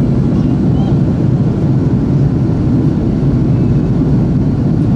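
Steady cabin noise of an Airbus A330-200 in flight, heard from inside the cabin: a low, even roar of the jet engines and rushing air with no change.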